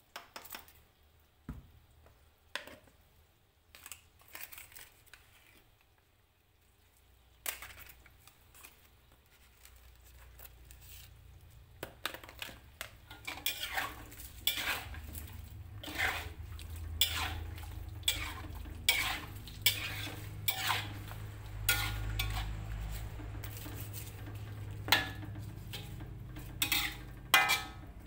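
Metal spatula scraping and knocking against a metal wok as tofu and eggplant are stirred: a few scattered clinks at first, then frequent clatter from about twelve seconds in, over a low steady rumble.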